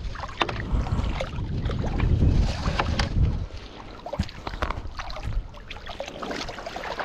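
Wind rumbling on the microphone, heaviest for the first three seconds or so and then easing, with scattered small clicks and knocks.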